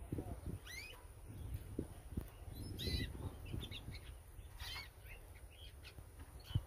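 Young canary giving its soft, broken-up twitter (riwik): short, separate chirps, about half a dozen, with the strongest about three seconds and four and a half seconds in.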